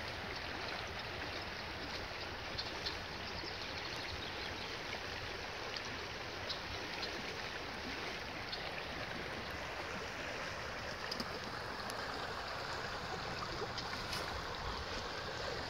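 Running water, a small stream flowing with a steady, even rush.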